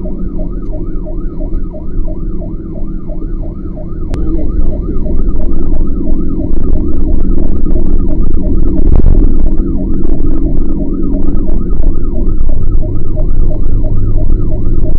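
Fire truck siren on a fast yelp, its pitch rising and falling about three or four times a second, heard from inside the cab over the truck's engine and road rumble.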